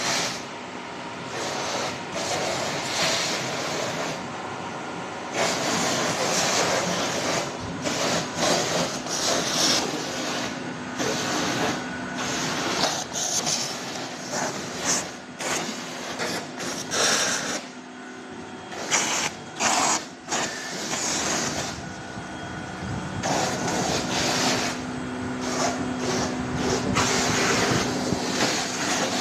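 Fibre filling machine running: a motor hum under repeated hissing bursts of air as the fibre is blown through the outlets.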